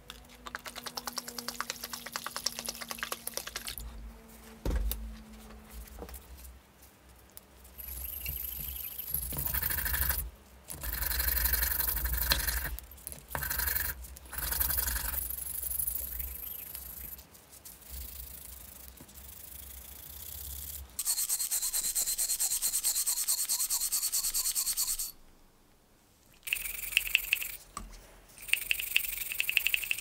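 Small brush scrubbing rusty lighter parts in a tub of liquid rust remover: bristles rubbing and scraping against the metal in several bursts of a few seconds each, with short breaks between.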